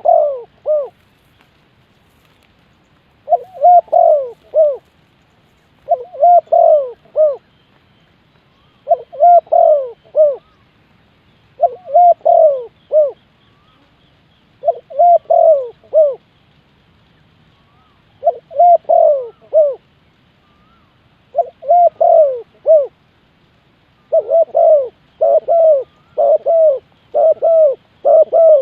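Spotted dove cooing: short phrases of three or four low, bending coos, repeated about every three seconds. Near the end the phrases come almost back to back.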